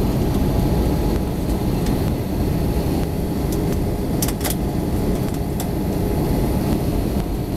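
Steady low rumble of an Airbus A320-214's CFM56-5B engines and airflow heard inside the passenger cabin during descent, with two short clicks about four seconds in.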